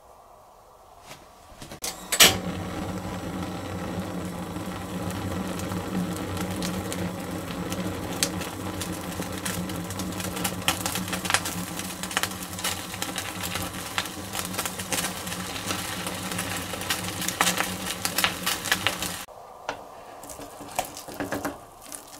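A gas stove burner is lit with a loud click about two seconds in and then runs steadily at full flame. Crackling comes from sawara skin searing on a wire rack held over the open flame. The burner cuts off suddenly near the end, leaving light handling noise.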